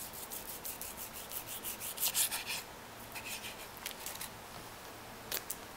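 Kitchen knife scraping and slicing through raw duck breast skin and fat against a wooden cutting board: a quick run of short scraping strokes over the first two and a half seconds, then a few scattered ones.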